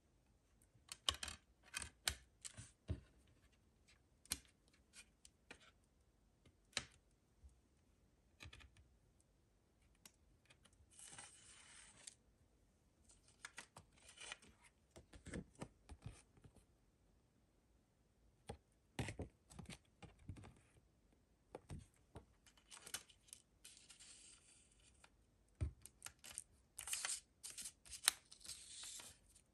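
A CD being pressed onto the hub of a plastic jewel case and the case being handled: a series of sharp plastic clicks and taps. Several times later comes the soft scraping rustle of the paper booklet or inlay sliding against the case.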